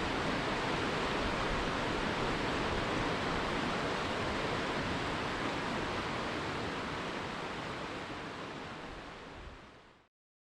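Rushing water of river rapids, a steady even sound that fades out over the last two seconds or so and stops.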